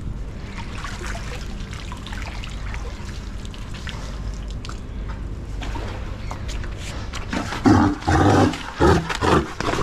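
Steady low rushing background, then from about seven and a half seconds a Cape fur seal bull calls out loudly several times in quick succession as it is cornered.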